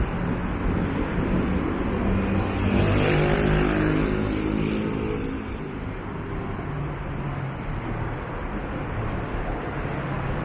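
A motor vehicle passing on a city street over steady traffic noise. Its engine sound swells to a peak about three to four seconds in, then fades.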